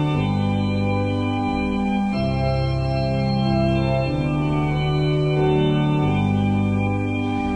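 Organ playing slow, held chords that change about every two seconds.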